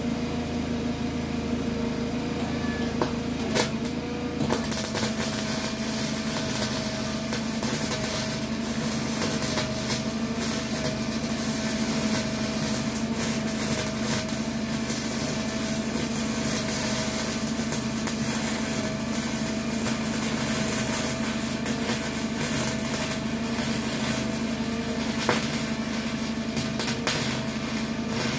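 A small 120-volt welder's arc crackling and popping as it welds steel, starting about four seconds in and running on steadily; the popping and cracking come from welding over rust. A steady hum runs underneath.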